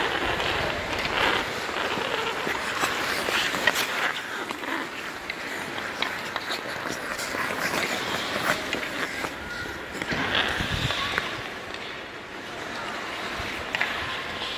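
Ice skates scraping and carving on rink ice, with sharp clacks of bandy sticks striking the ball and the ice scattered throughout.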